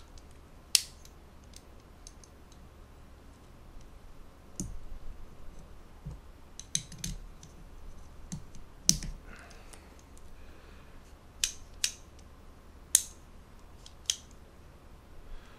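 Sharp clicks of small steel pistol parts as the hammer strut and spring are handled and fitted into a SIG P229 frame: about eight loud clicks at irregular gaps, with lighter taps and rattles between.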